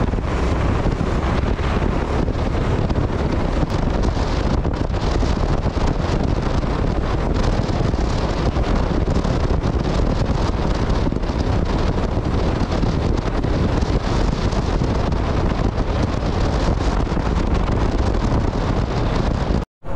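Steady wind buffeting the microphone of a motorcycle rider at road speed, with road and engine noise underneath. It breaks off abruptly for a moment near the end.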